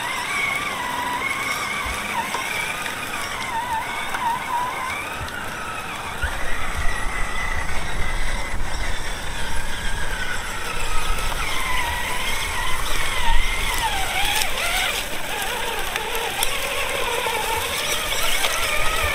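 Electric drive motor and gearbox of a Redcat Gen9 1/10-scale RC trail truck whining, the pitch rising and falling as the throttle changes while it crawls through grass. A low rumble comes in about six seconds in.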